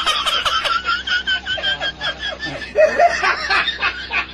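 Recorded laughter sound effect: a person snickering and chuckling in quick repeated bursts, high-pitched at first, with deeper laughs about three seconds in.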